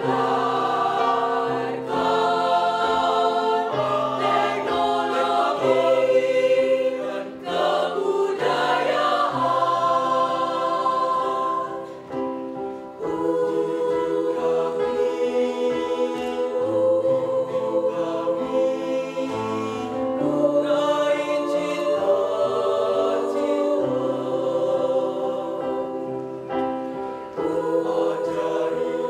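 Mixed choir of young men and women singing in several parts, holding long chords, with low male voices under the upper parts and brief breaks between phrases.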